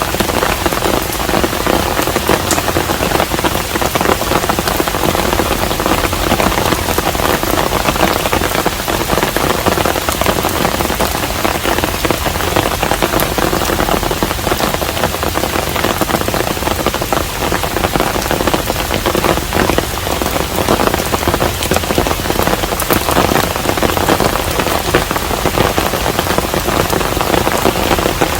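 Steady rain falling on a traditional Korean hanok: an even, dense hiss of rain with single drop hits ticking through it.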